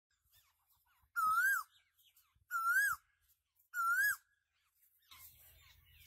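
Three identical loud whistled calls, each about half a second long, rising and then dropping sharply, spaced about 1.3 seconds apart. Near the end, faint bird chirps start over a low hum.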